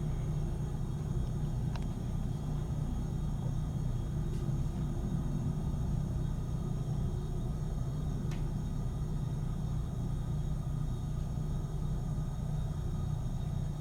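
Steady low rumble of jet aircraft engines, even in level throughout, with faint steady high-pitched whines above it.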